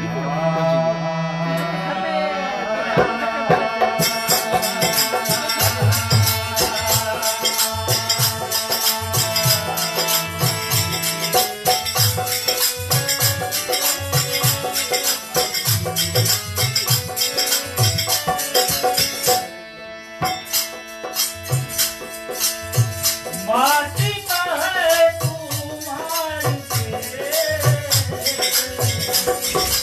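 Devotional folk music: a harmonium holding chords, a dholak drum keeping a steady beat, and a fast shaker-like rattle that comes in about four seconds in and drops out briefly past the middle. A man sings over it near the start and again toward the end.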